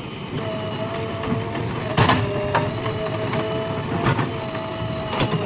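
JCB 3DX backhoe loader running while digging, a steady mechanical whine over the diesel engine, with three sharp knocks.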